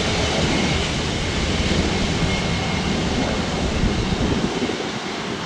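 Airbus A350-900's Rolls-Royce Trent XWB jet engines at taxi idle as the airliner rolls past, a steady rushing noise that eases slightly near the end, mixed with wind on the microphone.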